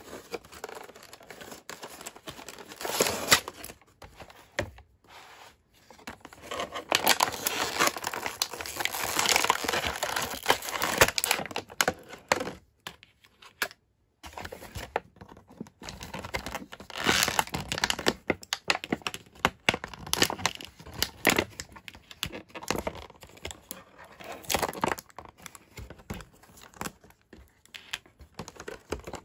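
Thin plastic packaging crinkling and crackling, with scattered small clicks, as plastic toy pieces are worked out of a moulded plastic tray. It comes in spells with short pauses.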